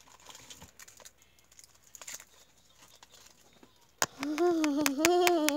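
Faint scattered clicks of toy handling, then a sharp click about four seconds in. Right after it, a child's voice starts a long, wavering, wordless whine with a few clicks over it.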